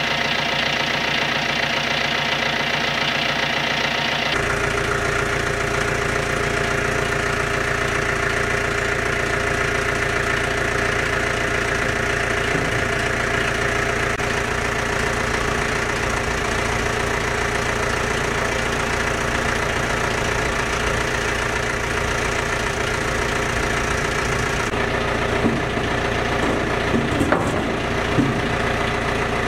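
John Deere tractor engine idling steadily, with a few short metal clanks near the end as the mixer's cast gear wheel and yoke are handled.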